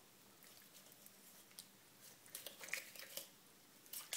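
Faint clicks and wet crackles of a knife cutting through raw chicken skin and a wing joint, mostly in the second half, with a sharper click near the end.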